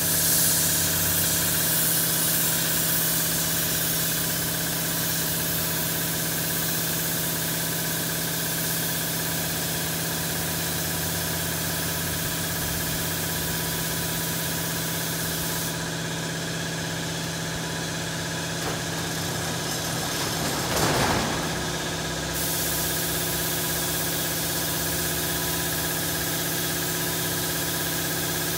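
Air spray gun hissing as gelcoat flake is sprayed, over the steady hum of an air compressor running. One brief, louder rush of air comes about three-quarters of the way through.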